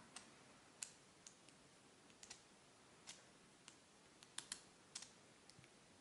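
Faint, irregular clicks from the brass letter wheels of a cheap Chinese letter-combination padlock as they are turned by hand under shackle tension, while the picker feels for a binding wheel.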